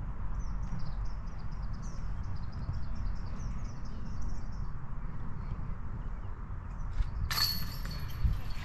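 Wind rumbling on the microphone, with a small bird singing a run of short, high chirps through the first half. Near the end a harsh hiss comes in for about a second and a half.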